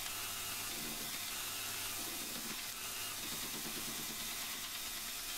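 Belt grinder running with a steel knife blade held against the abrasive belt, giving a steady grinding hiss over the motor's low hum.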